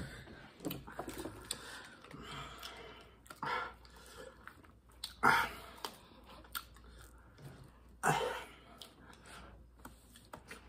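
Close chewing and mouth sounds of people eating spicy sauced chicken wings, with scattered light clicks and a few short louder sounds about three and a half, five and eight seconds in.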